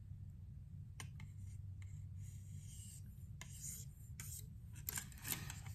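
Faint, scattered scratches and small clicks of a knife in its KME sharpening clamp being handled, over a low steady hum.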